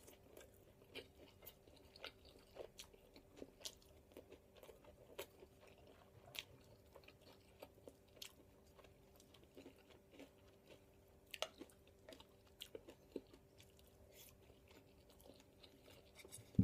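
Faint close-up chewing and crunching of Japanese-style fried chicken (karaage), with small scattered clicks throughout over a low steady hum.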